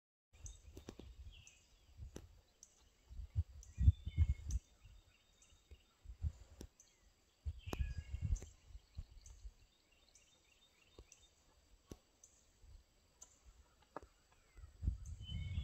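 Gusts of wind rumbling on the microphone, loudest around four seconds and eight seconds in. Birds chirp and trill in the background, and a few sharp clicks are heard.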